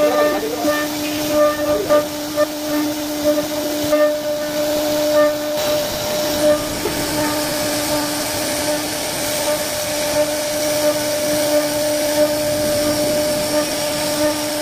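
CNC router spindle running steadily while carving a wooden door panel: a constant whine over a hiss of cutting noise with small ticks. The lower tone of the whine drops away about five and a half seconds in.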